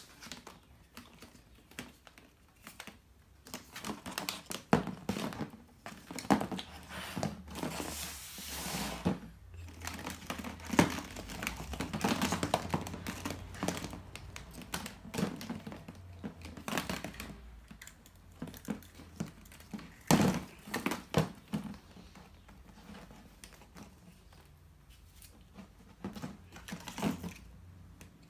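Hollow plastic Easter eggs being handled: picked out of a plastic basket and set down on a hard surface, with irregular clicks, light knocks and rattles of plastic on plastic, and a longer rattling stretch about eight seconds in.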